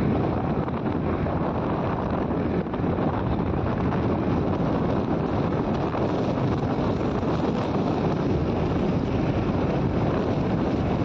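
Steady wind rushing over the phone's microphone on a moving motorcycle, with the ride's road and engine noise blended in underneath.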